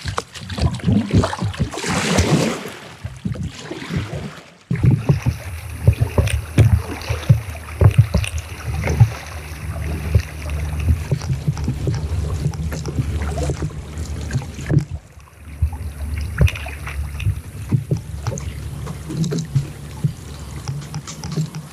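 Double-bladed kayak paddle dipping and splashing in the water with each stroke, with water swishing along the kayak's hull, over a steady low rumble.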